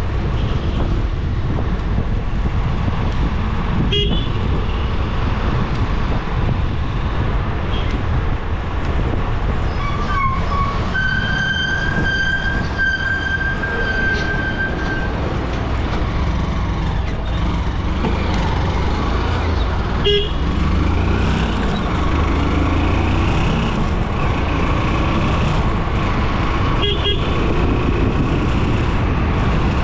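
Steady road and engine rumble of a vehicle driving through town traffic, with a long vehicle horn blast held for about four seconds, starting about eleven seconds in.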